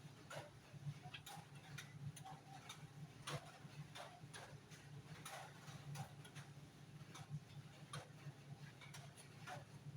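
Faint, irregular clicks and light taps, about one or two a second, over a low steady hum: hand work with tools and parts during a car horn installation.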